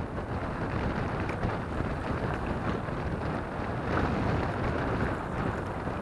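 Wind buffeting the microphone: a steady, low, noisy rush that swells briefly about four seconds in.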